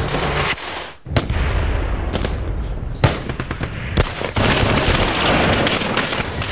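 Gunshots: sharp single shots about a second apart, then a dense, continuous din of noise from about four seconds in.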